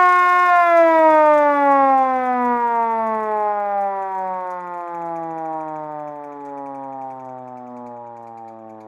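Vintage manual fire-truck siren holding a steady wail, then, about half a second in, sliding slowly down in pitch and fading as it winds down.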